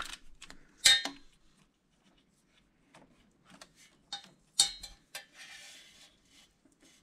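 Sharp metallic clinks and clicks as a grounding wire is pulled and routed through an engine bay, knocking against the parts. Two louder clinks come about a second in and about four and a half seconds in, with a brief scraping rustle just after the second one.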